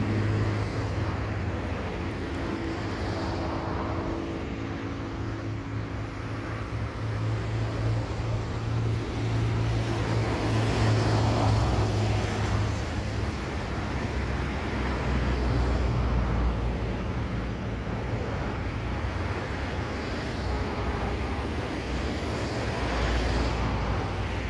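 Road traffic: cars passing with a steady low engine hum underneath, swelling twice as vehicles go by.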